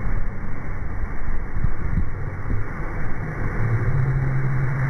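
Sea waves breaking over a pier walkway, seawater splashing and rushing across the deck, under heavy low rumbling noise. A steady low hum comes in near the end.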